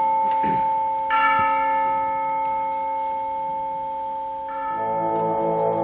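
A church bell tolling to open the piece: a deep bell struck about a second in and ringing on over the fading earlier stroke. Near the end the orchestra comes in with a low held chord.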